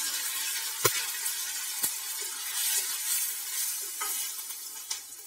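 Hot oil sizzling in a stainless steel kadai around mustard seeds, curry leaves and chillies while turmeric powder is stirred in with a spatula. Two sharp clicks come about one and two seconds in, and the sizzle fades near the end.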